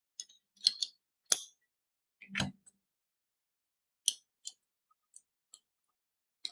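Scattered light clicks and clinks of small metal parts being handled, with one duller knock about two and a half seconds in.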